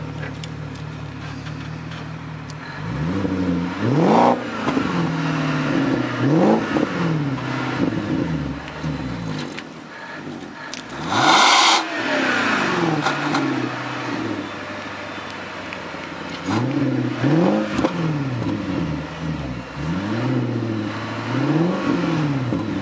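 BMW 545i's 4.4-litre V8 through a custom stainless-steel exhaust with a cut-out valve, idling, then revved in a series of short throttle blips that rise and fall quickly. Near the middle a loud rushing burst of about a second comes with one of the revs, and is the loudest moment.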